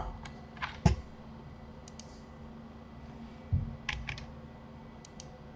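Scattered clicks of a computer keyboard and mouse, a handful spread out with a quick cluster about four seconds in, plus one dull low thump just before it, over a faint steady hum.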